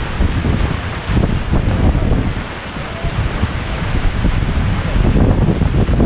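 Steady rush of a waterfall heard from inside its spray, with water and wind buffeting the action camera's microphone in rough low rumbles under a constant high hiss.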